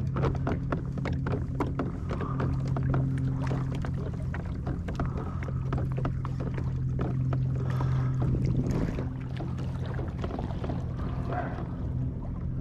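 Pelican Getaway 110 HD II kayak under way on calm water: a steady low hum from its drive, with water ticking and trickling along the hull. The hum shifts slightly about two-thirds of the way through.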